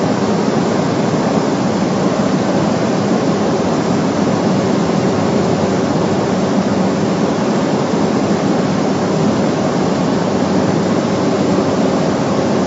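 Steady cockpit noise of a Cessna 208B Caravan in flight on approach: its single Pratt & Whitney PT6A turboprop engine and propeller running evenly, heard from inside the cabin.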